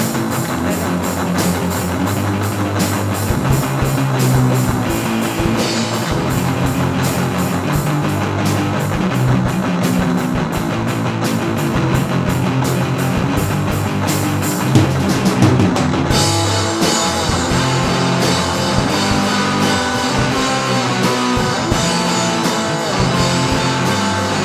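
Background rock music with a drum kit and guitar, a steady fast beat.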